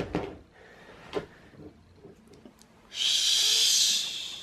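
A loud hiss, starting suddenly about three seconds in, lasting about a second and then fading.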